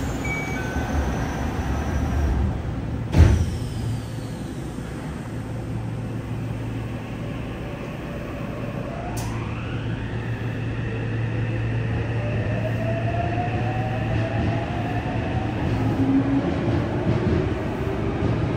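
Yokohama Blue Line 3000R subway car: the doors slide shut with a sharp thump about three seconds in. From about nine seconds the Mitsubishi IGBT-VVVF traction inverter and motors whine, climbing in pitch in several rising steps as the train pulls away and accelerates, over a steady low hum.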